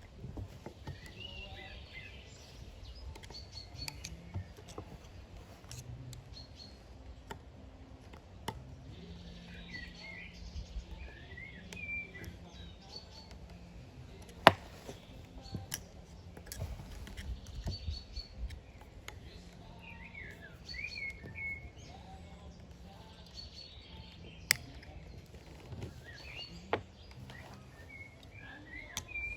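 Birds chirping and singing in repeated short phrases, over a low background rumble. A few sharp knocks cut through, the loudest about halfway through and two more near the end.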